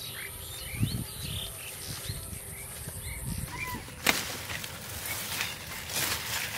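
Small birds chirping over a steady high-pitched drone. About halfway through the drone stops and grass and leaves rustle, with sharp snaps as Malabar spinach stems are picked and cut by hand; the loudest snap comes about four seconds in.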